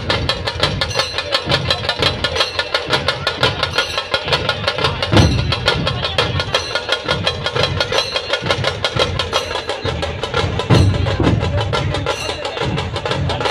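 A troupe of large dhol drums beaten with sticks in a fast, driving rhythm. Heavy bass hits come about every five seconds.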